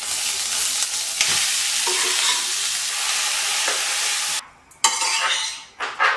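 Hot oil sizzling in a stainless steel frying pan as curry leaves go into a tempering of mustard seeds and urad dal, then grated beetroot frying while a spatula stirs it. The sizzle breaks off briefly about four and a half seconds in.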